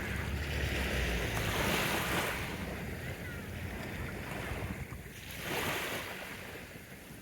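Sea waves breaking and washing up the shore, the surf swelling twice, with wind buffeting the microphone.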